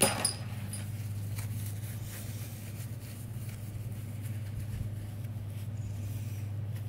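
Paper towel rustling as hands are wiped clean, with a sharper crackle at the very start and light scattered clicks after, over a steady low hum.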